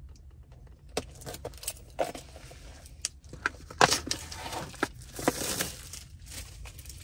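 A bunch of keys jangling and scraping, with a series of sharp clicks and short rustles of cardboard packaging as an action-camera box is worked open.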